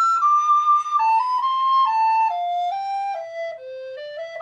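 Professional baroque-fingered recorder playing a melody of distinct notes that step downward, growing softer as it descends, then turning upward again near the end.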